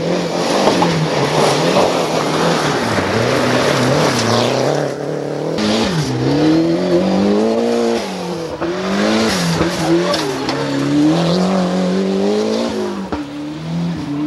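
Rally cars driven flat out on a loose gravel stage. In the first few seconds there is a dense wash of engine and gravel noise. From about six seconds in, an engine note rises and drops again and again as the driver revs hard and changes gear.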